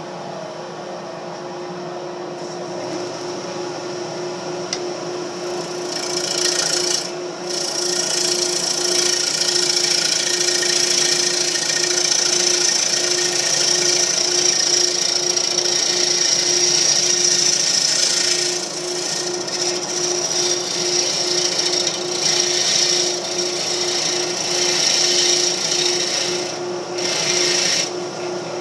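Wood lathe running with a pulsing hum while a tool works the spinning mahogany bowl, giving a bright hiss that swells about six seconds in and drops out briefly a few times as the tool comes off the wood.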